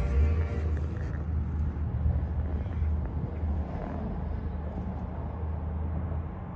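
Heavy diesel engine idling: a steady low rumble.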